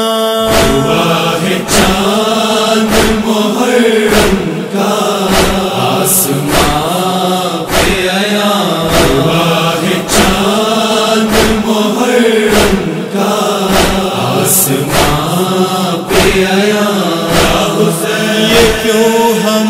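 Male voices chanting a nauha lament, without melodic instruments, over a steady beat of thumps about one and a half per second.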